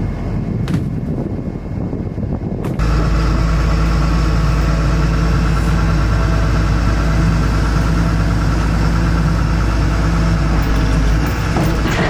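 Wind rumble with one sharp thud, as of a tire thrown down, about a second in; then from about three seconds in a wheel loader's diesel engine runs steadily, heard from the cab.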